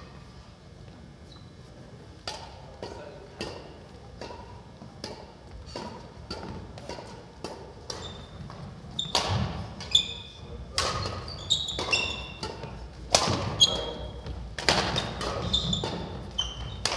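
Badminton rally on a gym court: sharp racket strikes on the shuttlecock and sneakers squeaking on the wooden floor. Light and sparse at first, the hits and squeaks get louder and come faster about halfway in.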